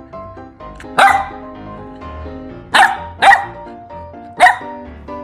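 Golden retriever puppy barking four short times, the middle two close together, over steady background music.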